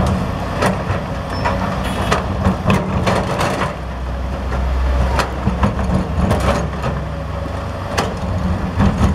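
Cat 320D excavator's diesel engine running under load while broken rock from its bucket clatters and knocks into the steel bed of a dump truck, in repeated sharp impacts. The engine drone deepens for a few seconds around the middle.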